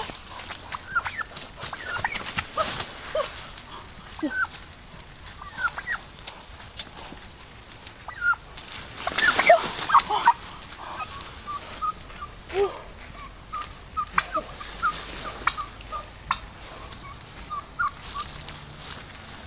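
Chickens clucking, a string of short calls, with a louder flurry of calls about nine to ten seconds in.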